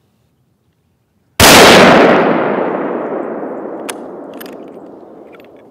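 A single bolt-action hunting rifle shot about a second and a half in, the report rolling away slowly over the next four seconds.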